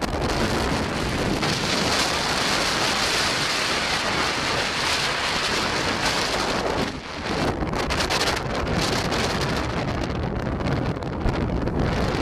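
Strong mountain wind buffeting the microphone in gusts, a loud rushing roar with a brief lull about seven seconds in.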